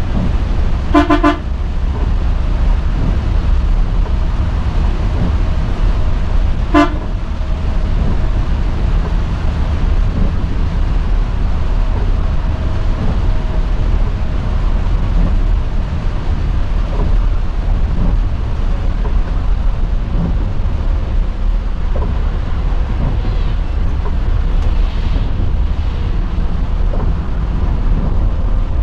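Coach bus heard from the driver's cab: a steady low engine and road drone on a wet road. The horn gives a quick run of toots about a second in and one short toot about seven seconds in.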